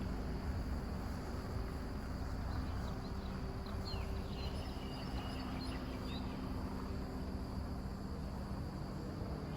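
Insects chirring steadily over a low, steady hum, with a few short high chirps about halfway through.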